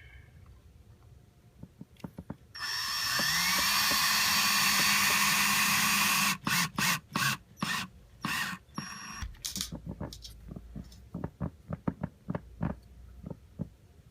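Power drill driving a squeak-repair screw through carpet into the floor: one steady run of about four seconds as the motor spins up, then a quick series of short trigger bursts as the screw is seated. Scattered light clicks and knocks follow near the end.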